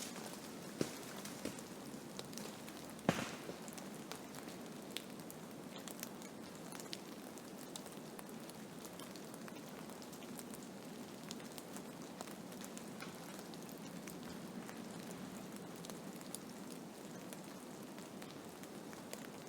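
Blizzard: a steady hiss of wind-driven snow, dotted with scattered sharp ticks as it strikes, with a louder click about three seconds in.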